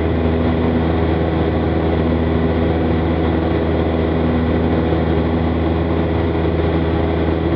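Piston engine and propeller of a single-engine light aircraft droning steadily in level flight, heard from inside the cockpit.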